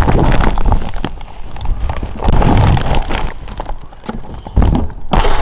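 Shopping bags being handled and set down in a car boot: plastic rustling and clicks, with several heavy low thuds, the loudest near the start, around the middle and shortly before the end.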